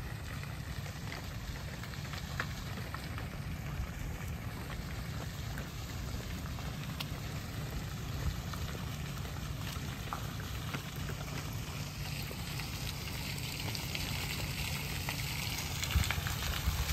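Wind buffeting the microphone, a steady low rumble with hiss. Near the end it is joined by the rising splash of a fountain's falling water.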